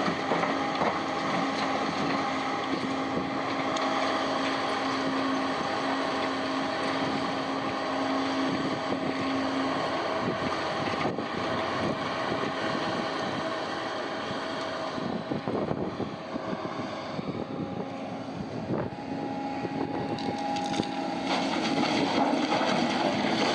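Heavy diesel mining machinery running: a steady engine drone with a hum that drops away about ten seconds in, and the noise swells louder near the end.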